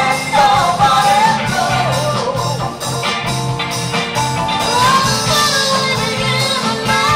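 Background music: a rock song with a singer's voice over guitar and a steady beat.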